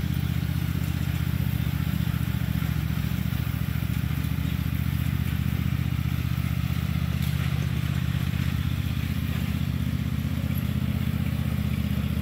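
Riding lawn mower's engine running steadily under mowing load, an even low hum that holds its speed throughout.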